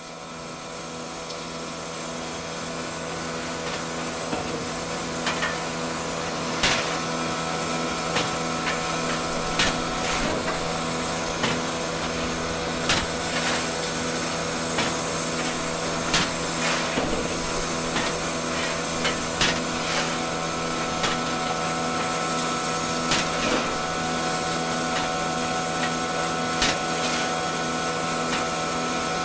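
Tri-ang Hornby Kneller Hall class OO gauge model locomotive under power: a steady electric motor hum and whirr that fades in over the first few seconds, with sharp irregular clicks every second or two.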